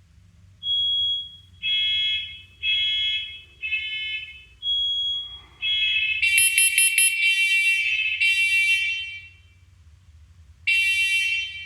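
Newly installed First Alert hardwired smoke alarms sounding on test: a run of short, high-pitched beeps, then a second, louder alarm joins about six seconds in. Both stop for about a second near the end and then start again.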